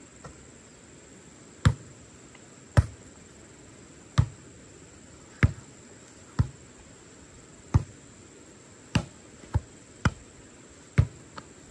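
A volleyball being bumped and set back and forth by hand, about ten sharp slaps of palm and forearm on the ball, roughly a second apart.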